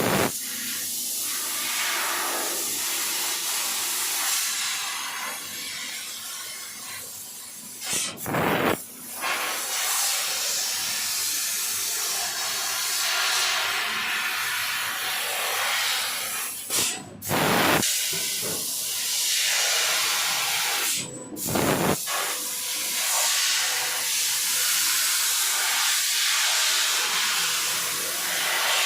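CNC laser cutting machine at work: a steady hiss of its assist-gas jet at the cutting head, broken by a few sudden short gaps.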